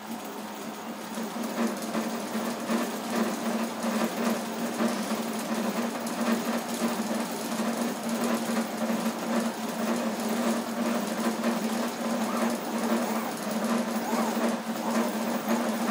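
CoreXY 3D printer printing: its stepper motors whir and buzz in changing patterns as the print head moves, over a steady hum. The motor noise picks up about a second and a half in.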